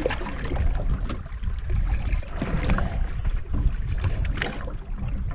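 Wind buffeting the microphone in a low, steady rumble, over the sound of water around a small fishing boat at sea.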